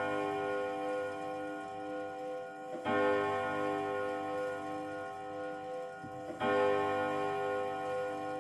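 Junghans chime clock striking the same deep note twice, about three and a half seconds apart, each stroke left to ring with a slow waver, in the slow even count of an hour strike.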